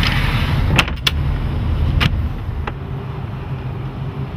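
Twin MerCruiser 5.0L fuel-injected V8 inboards idling with a steady low rumble. Over it come four sharp clicks in the first three seconds as a stainless latch on a fiberglass hatch is worked.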